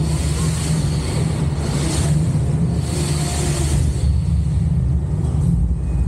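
Steady low rumble of a rapid river ride raft moving through the ride's water channel, with a rushing hiss of water that swells and fades a few times.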